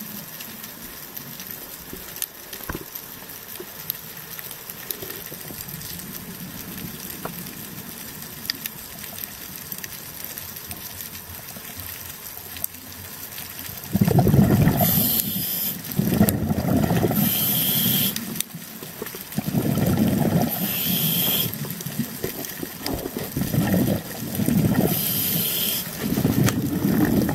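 Scuba diver's breathing through the regulator, heard underwater through the camera housing: rushing exhaust bubbles and the regulator's hiss come in bursts every three to four seconds over the second half, with four short, high hisses among them. Before that there is only a fainter, steady underwater hiss.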